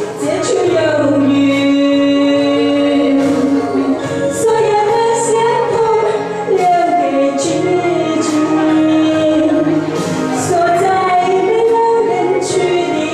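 A woman singing a song with instrumental accompaniment, holding long notes with vibrato over light, regular cymbal strokes.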